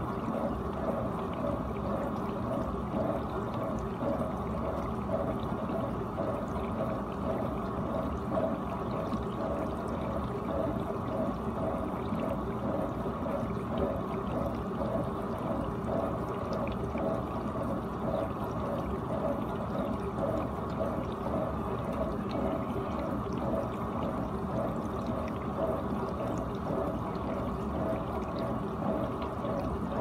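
GE dishwasher running mid-cycle: a steady rush of water spraying and sloshing inside the tub, with a faint regular pulsing in it.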